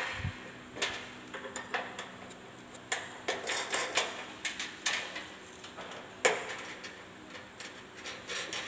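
Irregular metallic clinks and taps of nuts and bolts being fitted to a steel hospital bed frame's caster leg, with a sharper knock about six seconds in.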